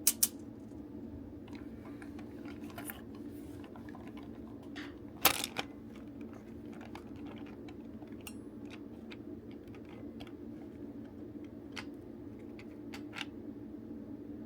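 Small clicks and taps of plastic toy-belt parts (DX Bugle Driver Zwei) being handled during disassembly, with a sharp clack right at the start and a louder one about five seconds in, over a steady low hum.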